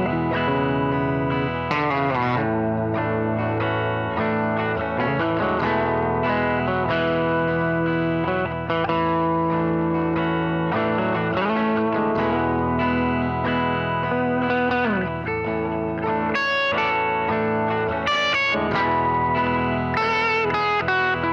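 Humbucker-equipped Les Paul-style electric guitar played through a Marshall SV20C Studio Vintage valve combo with a mild overdrive: held chords and single notes, with a few bent notes about halfway through.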